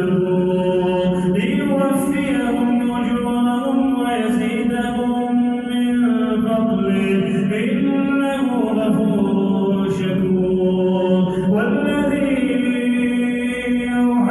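A man's voice reciting the Quran in slow, melodic tajweed chant, holding long drawn-out notes that slide up and down in pitch a few times.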